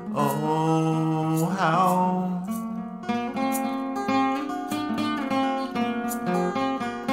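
A man singing a long, wavering note over a strummed acoustic guitar. After about two and a half seconds the voice stops and the acoustic guitar carries on alone with rhythmic chord strumming.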